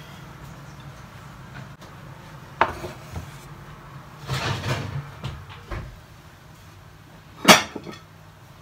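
Kitchen clatter of a metal muffin tin being handled at the oven: a sharp knock about two and a half seconds in, a run of clanks a little later, and one loud metal clank near the end, over a steady low hum at first.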